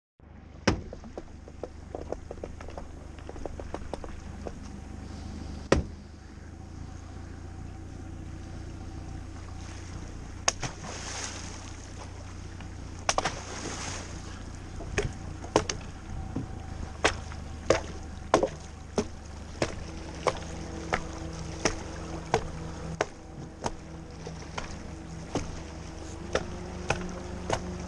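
Many sharp knocks and clunks on an aluminum jon boat, coming faster in the second half, over a steady low rumble.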